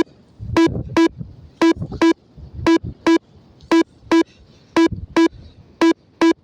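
XC Track variometer app beeping: short beeps at one steady pitch, in pairs, about one pair a second. A beeping vario tone like this is the climb signal. A low rumble runs between the beeps.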